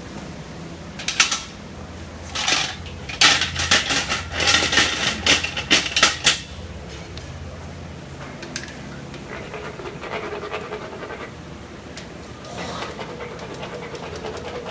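Metal dental instruments clattering and scraping in a stainless steel tray in a run of sharp bursts for a few seconds, over a steady low hum; fainter rustling follows.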